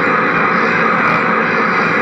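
Dense, unbroken wall of distorted noise from a guitar-pedal chain, a ProCo RAT distortion among them, played through a Fender amplifier. It holds at a steady loud level with no rhythm or breaks.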